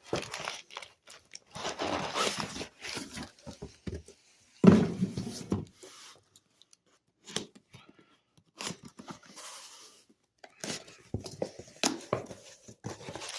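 Packing material being pulled out of a shipping box: irregular tearing, rustling and crinkling, loudest a little under five seconds in.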